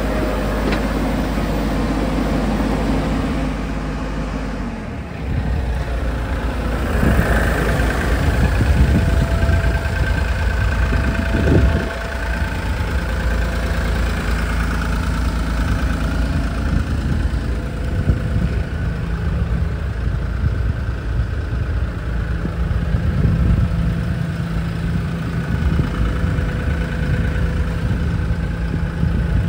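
Bobcat E50 mini excavator's 48 hp Tier 4 diesel engine running steadily at idle. Its drone changes character about five seconds in, swells for a few seconds around the middle, and there is one short knock.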